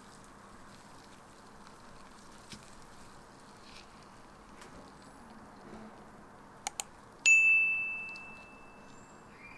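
Two quick clicks, then a single bright bell-like ding that rings out and fades over about two seconds, over a low steady background hiss.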